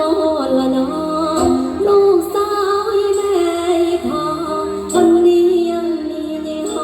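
Mor lam song: a woman sings a sliding, ornamented melody over musical accompaniment.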